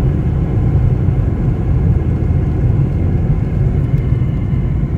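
A car being driven, heard from inside its cabin: a steady low rumble of engine and road noise.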